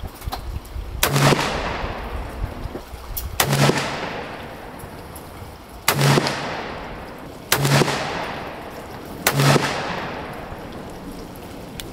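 Five shots from a Colt Cattleman black-powder revolver with a 4¾-inch barrel, loaded with 24 grains of Swiss 3F powder, fired about two seconds apart. Each shot is a sharp crack trailing off in a long echo.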